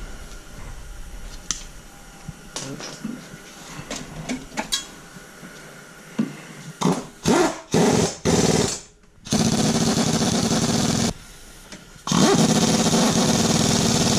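Light clinks of hand tools, then a power tool tightening fasteners: several short bursts followed by two longer steady runs of a few seconds each.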